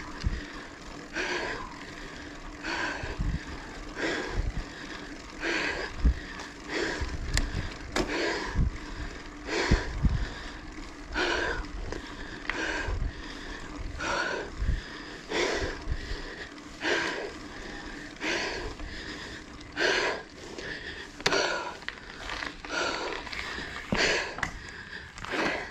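A cyclist breathing hard while pedalling up a steep climb: one loud breath about every second and a half. A low rumble with thumps runs beneath.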